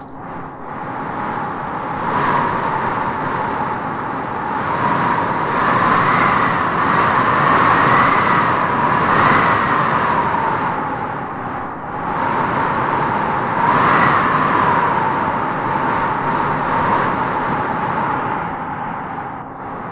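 Wind howling in gusts: a steady rush with a moaning whistle that rises and falls in pitch, swelling about two seconds in, strongest through the middle and again around fourteen seconds before easing near the end.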